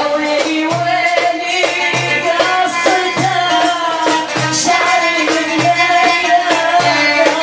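Traditional Iraqi folk ensemble playing: a sustained, gliding melody over a steady low hand-drum beat and jingling tambourine strokes.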